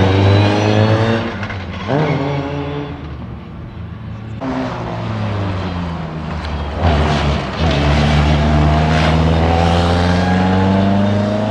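Formula 4 single-seater racing car engine accelerating on track, its pitch rising. It breaks and drops at a gear change or lift about a second and a half in and again about seven seconds in, then climbs again.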